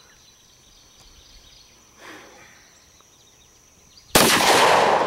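A single pistol shot from a .40 caliber Glock 22 about four seconds in, loud and sudden, ringing out and fading over more than a second.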